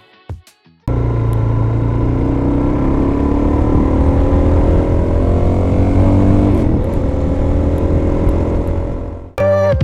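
Suzuki DR-Z400SM's single-cylinder four-stroke engine running under way, starting about a second in. Its pitch climbs steadily as it accelerates, then levels off about seven seconds in.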